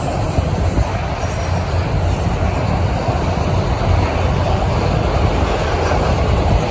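Empty autorack freight cars rolling past, a steady, loud rumble of steel wheels on the rails.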